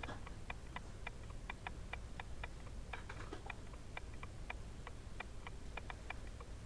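Faint, steady, rapid ticking, about four evenly spaced ticks a second, over a low steady hum.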